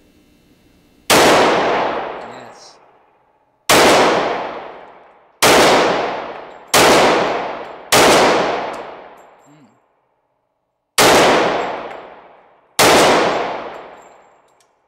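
Seven single shots from a Glock 21C .45 ACP pistol fired at a slow, uneven pace, the sixth after a longer pause. Each shot rings out for over a second before the next.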